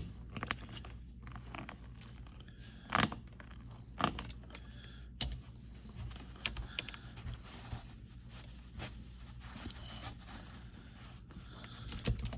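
Scattered knocks, scrapes and rustles of a pointed tool being poked around through carpet and its thick sound-deadening mat, searching for a seat-belt bolt hole, over a steady low hum. The loudest knocks come about three and four seconds in.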